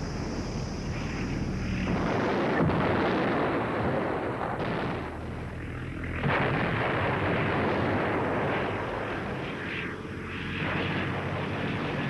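Steady drone of propeller aircraft engines, with heavy rumbling explosions breaking in about two seconds in and again about six seconds in, and a smaller one near the end: bombs falling in a night air raid.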